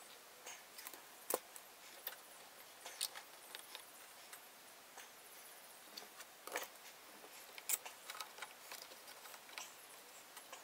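Light, scattered clicks and taps of a small bar clamp and oak chair pieces being handled as an epoxied split is clamped up, with a few sharper clicks among them.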